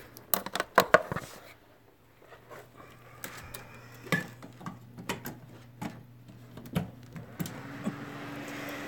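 Handling noise of a phone held against the body: sharp knocks and rubbing on its microphone, a quick cluster about a second in, then scattered taps and rustles, over a steady low hum.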